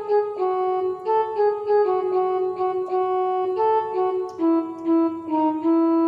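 A ringtone melody played in a synthesized keyboard sound: a quick run of short separate notes over a lower line of longer held notes.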